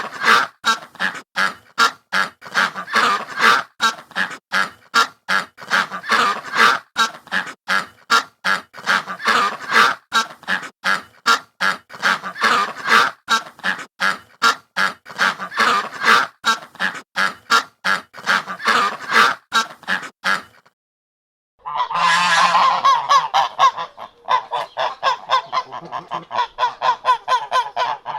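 Ducks quacking: a fast run of repeated quacks, about three a second. It breaks off about twenty seconds in, and after a moment's silence a second recording of ducks calling, denser and overlapping, takes over.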